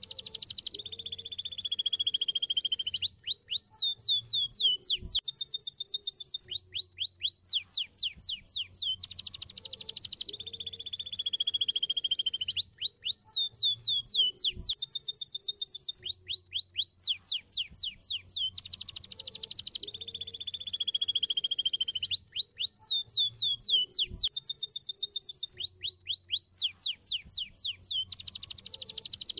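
Domestic canary singing a long song: fast trills of repeated downward-sweeping notes alternating with long, slowly falling whistled tones. The same sequence of phrases repeats about every ten seconds.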